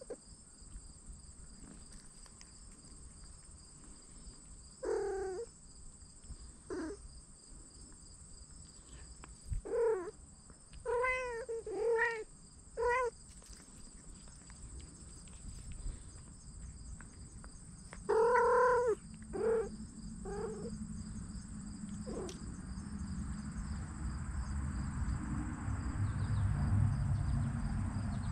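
Kittens meowing: about ten short, high-pitched meows, some coming in quick runs of two or three. A low rumble builds near the end.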